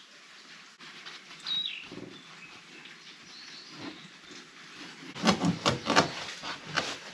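Kitchen knife chopping a skinned mamushi into pieces on a plastic cutting board: a quick run of about seven sharp knocks near the end, as the blade goes through the snake's hard bones. A bird chirps briefly about a second and a half in.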